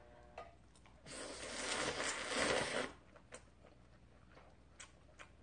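A person slurping a mouthful of instant shrimp ramyeon noodles for about two seconds, a wet hissing slurp, followed by chewing with a few small clicks.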